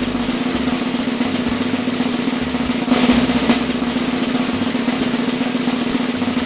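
Snare drum roll, steady and unbroken: a suspense roll leading up to the reveal of a quiz answer.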